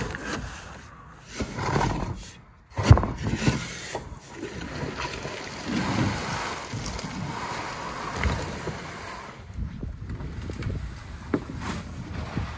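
Coarse, gritty sand being shoveled, then a loaded canvas tarp dragged out of a pickup bed and pulled off a sand pile: irregular scraping, rustling and sliding of sand, with a sharp knock about three seconds in.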